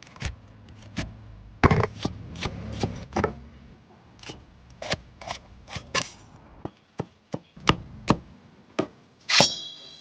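Irregular knocks and clicks of kitchen utensils and containers being handled while seasonings are added to a pot of chicken soup.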